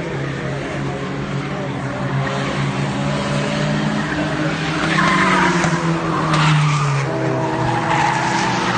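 Several race cars' engines running on the track, their pitches shifting as they go, growing louder about five seconds in as the cars come closer.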